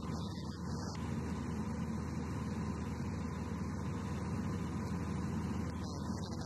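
Light aircraft's piston engine running steadily in cruise, an even low drone heard from inside the cockpit.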